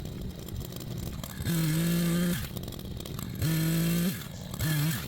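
Echo Timberwolf CS-590 two-stroke chainsaw idling, then revved up three times. Each burst holds a steady high pitch for under a second and then drops back to idle.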